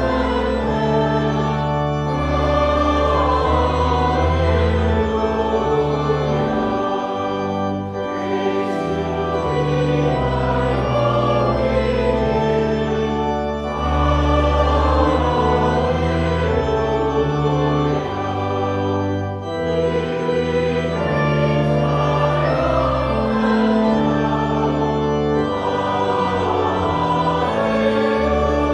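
Church organ and choir singing a slow hymn in sustained chords, with brief pauses between phrases, echoing in a large church.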